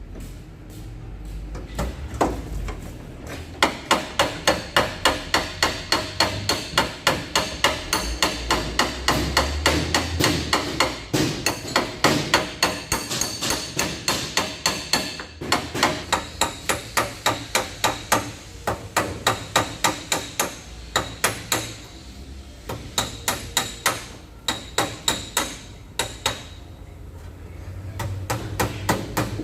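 Rapid, even hammer taps on a car's sheet-metal body panel, about three a second with a light metallic ring, in several runs with short pauses: tapping down the high spots during paintless dent repair.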